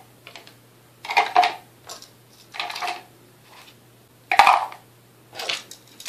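Grey plastic electrical project box and small electronic parts handled and fitted together: irregular clicks, knocks and rattles of plastic and parts, with one louder knock about four and a half seconds in.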